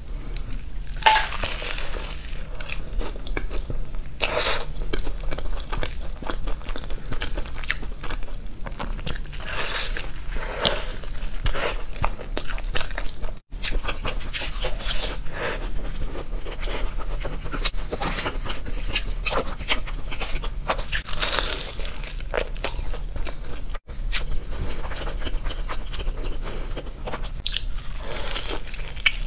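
Close-miked biting and chewing of flaky puff-pastry egg tarts: crisp crackling crunches of the pastry layers in irregular bursts, the sound cutting out briefly twice.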